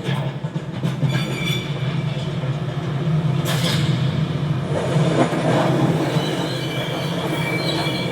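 Film sound effects of a rail-mounted door conveyor: a steady mechanical rumble like a train on tracks, with high metal-on-rail squeals about a second in and again near the end, and a couple of brief whooshes of doors passing in between.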